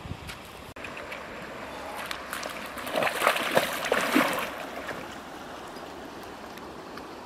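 Feet wading through shallow river water, splashing with each step, loudest between about three and four and a half seconds in. A steady sound of running water lies underneath.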